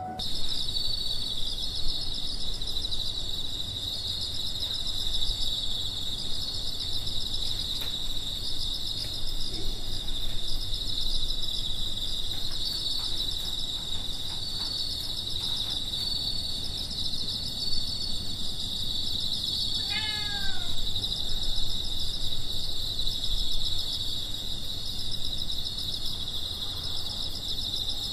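Autumn night insects chirping and trilling in a steady, continuous chorus, with a low background rumble. About two-thirds of the way through, a single short falling animal call cuts in briefly.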